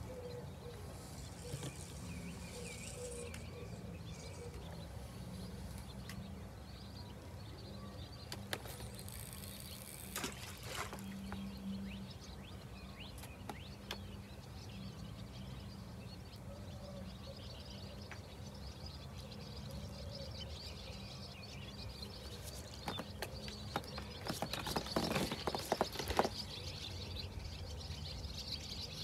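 Quiet waterside ambience: small birds chirping faintly over a steady low rumble. Near the end comes a short spell of rustling and clicking.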